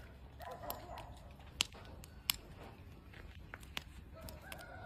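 Chickens clucking, and a rooster starting a long, slowly falling crow near the end. Two sharp clicks come in the middle.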